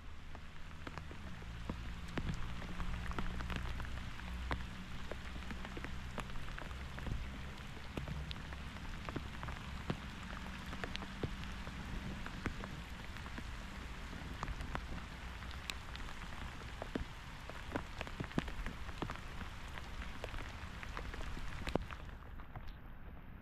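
Steady rain falling, with many separate drop ticks. A low hum runs under it for about the first half, then fades out.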